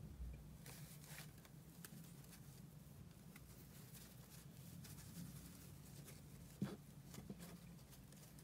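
Near silence: faint rustles and small scattered clicks of jute yarn being worked with a metal crochet hook, one tick a little louder near the end, over a low steady room hum.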